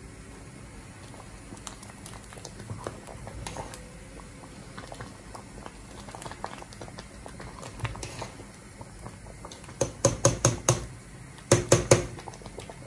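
Metal ladle stirring thick bilo-bilo in a stainless steel pot, with light scattered clinks and scrapes. Near the end come two quick runs of sharp clinks of the ladle against the pot.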